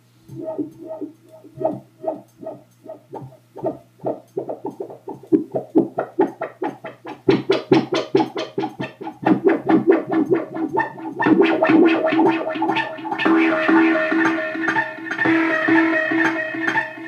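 Circuit-bent Casio SK-1 played through delay and reverb effects, with the effect knobs being turned: a stuttering rhythm of repeated pitched pulses, about three a second at first, that speeds up and thickens, building after about eleven seconds into a dense sustained wash with a steady held note.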